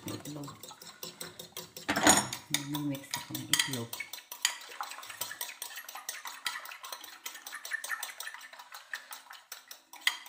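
A utensil beating egg in a white ceramic bowl: quick, light clicks against the bowl, with a louder knock about two seconds in.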